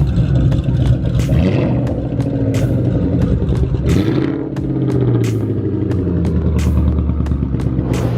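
Car engine running at low revs, its pitch shifting about four and a half seconds in and then holding steady, with sharp ticks every half second or so.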